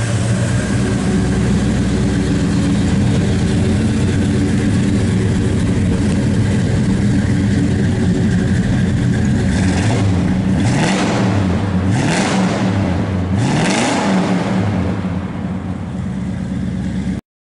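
A 383 stroker V8 idling steadily, blipped three times in quick succession about ten to fourteen seconds in, each rev rising and dropping back to idle. The sound cuts off abruptly just before the end.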